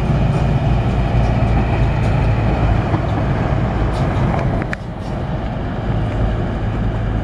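DB class 642 Desiro diesel multiple unit running through the station, a steady low engine drone with rail noise. There is a brief dip in level about two-thirds of the way through.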